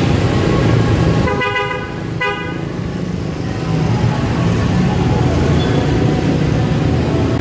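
A vehicle horn sounds twice, a longer toot about a second in and a short one right after, over a steady rumble of road traffic.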